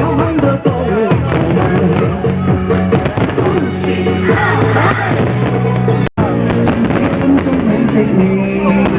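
Music with singing, with fireworks bursting and crackling underneath. The sound cuts out for an instant about six seconds in.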